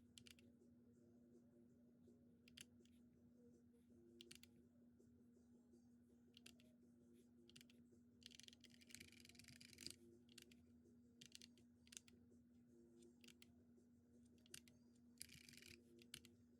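Faint, scattered key presses on an RK61 Pro mechanical keyboard with red switches, single clicks a second or two apart, with two brief runs of quicker presses about halfway through and near the end. A faint steady hum sits underneath.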